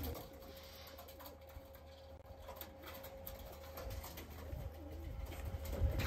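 Faint cooing from a flock of domestic dönek (Turkish roller) pigeons.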